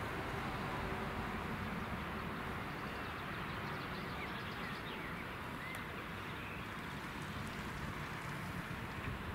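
Distant Prussian T18 steam tank locomotive moving slowly on a shunting run, heard as a steady low rumble under an even outdoor hiss, with a few faint bird chirps midway.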